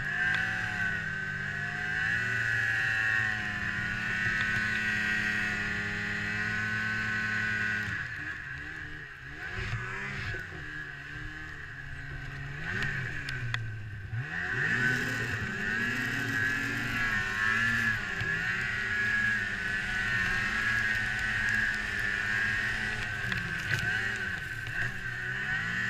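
Ski-Doo MXZ 600 snowmobile's two-stroke engine running under throttle, working through deep powder snow, its pitch wavering up and down. About eight seconds in the revs drop and go uneven for several seconds, then pick back up and hold steady again.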